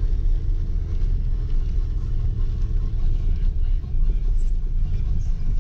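Dacia Duster driving on an unpaved mountain track, its engine and tyres heard from inside the cabin as a steady low rumble.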